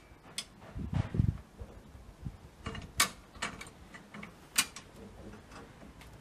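High-lift farm jack being stepped down under the weight of a vehicle, its climbing pins engaging with a series of sharp metal clacks at irregular intervals. A heavier, dull thud comes about a second in.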